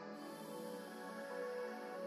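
Soft, calm background music of slow, sustained notes.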